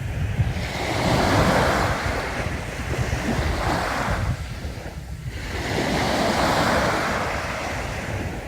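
Sea waves breaking and washing up a beach, the surf swelling and ebbing as each wave comes in, with wind rumbling on the microphone.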